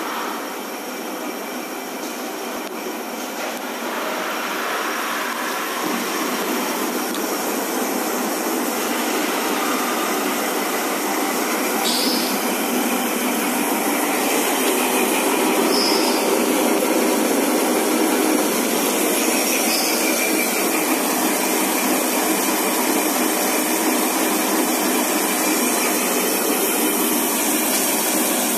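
Automatic scourer mesh knitting machine running steadily as its two knitting heads knit metal wire into mesh tubes, getting somewhat louder over the first half.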